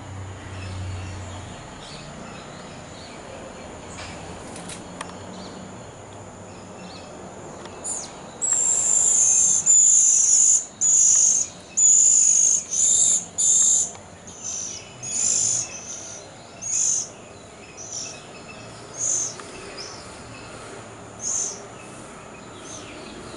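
High-pitched bird calls. About a third of the way in comes a rapid run of loud, squealing calls, which then thin out to single calls a second or two apart.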